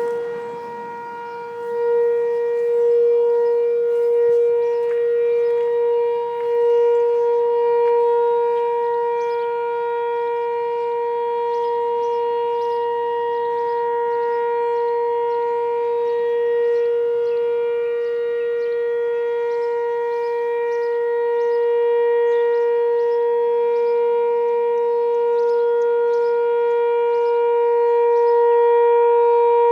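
Sentry 3V8H outdoor warning siren sounding its steady alert signal in a test: one held tone that does not rise or fall in pitch, its loudness swelling and fading slightly.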